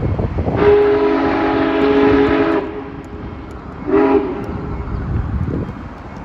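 A train's horn sounds a chord in a long blast of about two seconds, followed a second later by one short blast.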